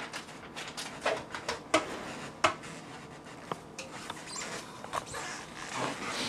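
Scattered light taps and soft rustling from handling around an open pressure cooker pot, with a plastic bag of frozen shrimp in hand: irregular small clicks every half second or so.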